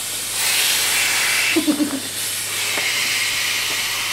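A person blowing hard by mouth into the valve of an inflatable vinyl chair: two long, breathy rushes of air, the second starting about halfway through.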